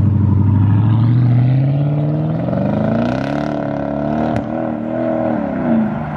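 Supercharged 5.4-litre V8 of a 2006 Mercedes CLS55 AMG, running through a custom exhaust, accelerating hard away. It is loud, and loudest at the start. The engine pitch climbs over about three seconds, holds, then drops back near the end as the car moves off.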